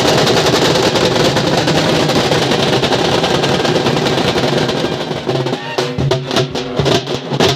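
Halgi frame drums played loud and fast: a dense continuous drum roll that breaks into separate rapid beats about five seconds in.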